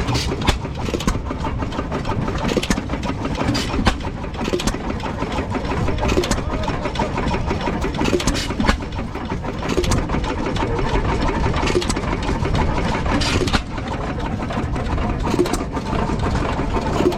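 Antique stationary gasoline engines running: a steady low rumble with many irregular sharp pops and clacks from the engines' firing and valve gear.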